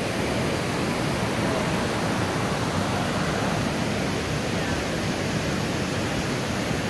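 Steady rush of water pouring over a waterfall and through rocky rapids in a stream.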